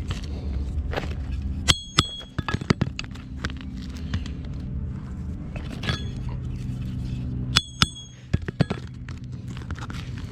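Roofing nails being pried out from under a roof shingle with a metal tool: scraping and clicking, with two pairs of sharp, ringing metal clinks, about two seconds in and again about three quarters of the way through. A steady low hum runs underneath.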